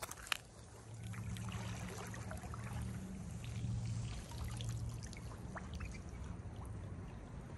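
Water trickling and dripping off a wet magnet-fishing rope as it is hauled up out of a river, with scattered small drips. There is a sharp tick just after the start and a steady low hum underneath from about a second in.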